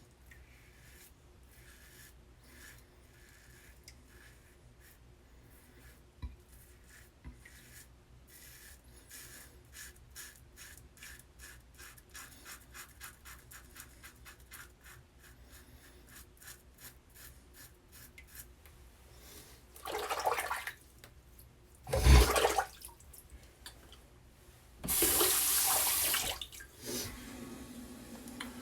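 Badger shaving brush working up lather in short, quiet rhythmic brushing strokes that quicken to about three or four a second. These are followed by splashes and a brief rush of running tap water near the end.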